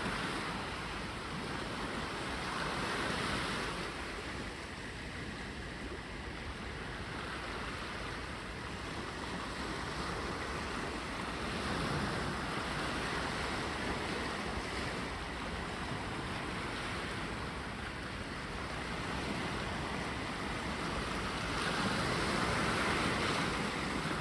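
Mediterranean sea waves breaking and washing on the beach, a steady surf wash that swells louder a few times, most strongly near the end.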